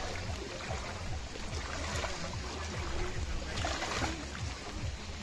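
Steady rushing of water with a low rumble underneath.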